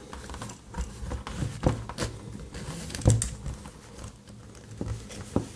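Nylon zip tie being worked loose by hand with a pocket-knife blade holding its locking pawl open: irregular small clicks and plastic rubbing as the strap is pulled back through the head, with the sharpest click about three seconds in.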